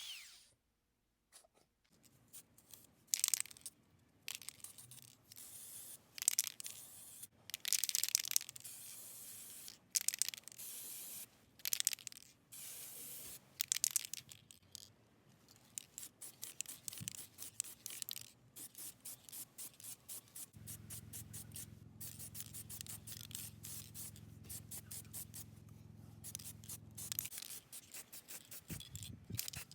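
Abrasive hand rubbing strokes on a pickaxe during restoration. The strokes are scattered and uneven at first, then quick and steady from about halfway through, with a faint low hum for several seconds near the end.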